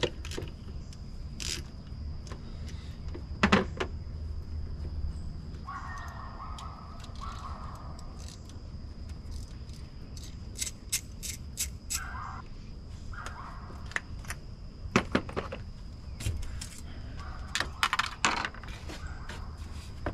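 Scattered clicks and clinks of hand tools and plastic parts as the engine cover bolts, oil cap and dipstick are taken off, with a few short rattles.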